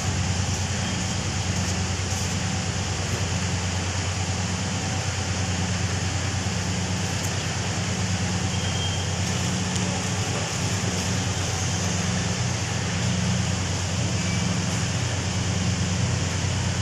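Steady industrial machinery noise: a constant low engine-like hum under a broad, even hiss, with no change in level.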